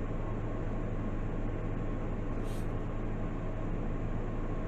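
Steady low hum and hiss of room background noise, with a brief high hiss about halfway through.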